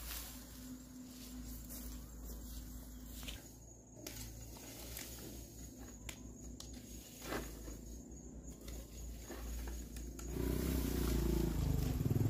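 Hand tools raking and hoeing dry grass and straw over dry soil: uneven rustling and scraping with a few sharp knocks. A louder low sound builds in the last two seconds.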